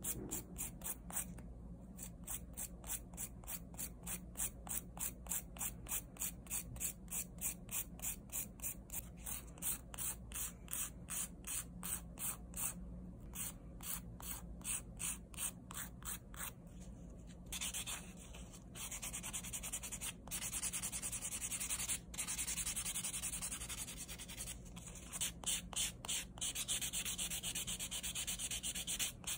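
Hand nail file rasping back and forth across a gel-coated artificial nail tip, buffing off the glossy top coat, in quick even strokes about three a second. Past the middle the rubbing turns denser and more continuous for several seconds before the separate strokes return.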